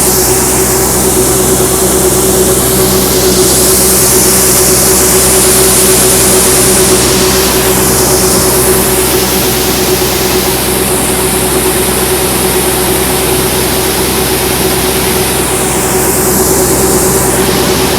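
Heavy farm machinery running steadily under load: a tractor engine driving grain-unloading equipment, with a strong constant hum and a hiss that swells and fades a few times.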